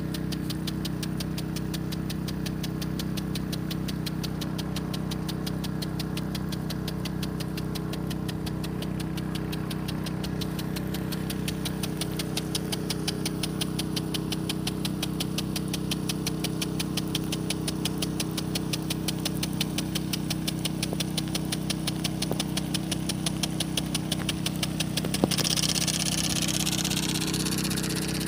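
A 5 hp petrol engine driving a water pump runs steadily at a constant speed, feeding an impact sprinkler. About 25 seconds in, a louder hiss of water spray comes in as the jet sweeps close by.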